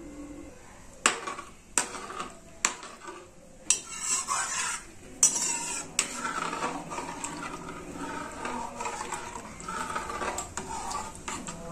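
Slotted metal spoon stirring a thin kadhi in an aluminium kadhai. There are sharp clinks of the spoon against the pan in the first few seconds, then steady scraping and swishing. The kadhi is being stirred constantly before it boils so that the yogurt does not split.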